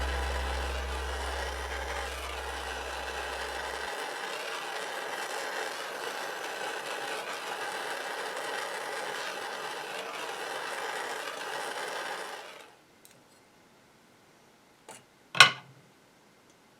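Jeweller's soldering torch flame hissing steadily, then cutting off abruptly about twelve seconds in; near the end come two short sharp clicks, the second much louder.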